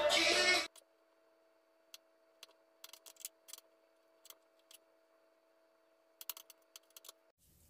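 Background music cuts off about a second in. Then a kitchen knife taps on a wooden cutting board in short, irregular chopping strokes, a few scattered and two quick runs, mincing abalone innards, over a faint steady hum.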